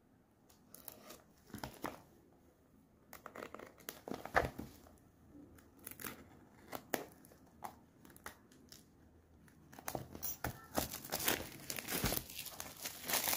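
Razor blade slitting the clear plastic shrink-wrap on a cardboard phone box in short scratchy strokes, then the film being pulled off the box and crinkling, denser and louder over the last few seconds.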